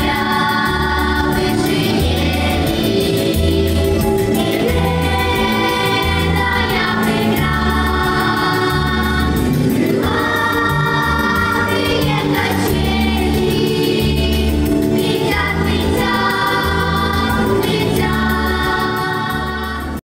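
Children's choir singing a song over an instrumental accompaniment with a steady bass line, amplified through stage microphones.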